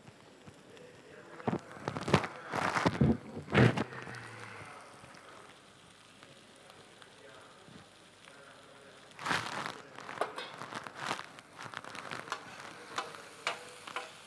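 Several loud knocks about two to four seconds in, then sliced onion in a paella pan sizzling and crackling, jumping up sharply about nine seconds in as more oil is poured onto it, with spitting crackles as it is stirred.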